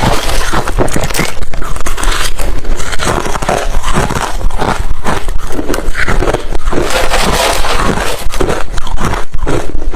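Refrozen crushed ice being chewed close to the microphone: a rapid, loud run of hard crunches and cracks as the teeth break the ice.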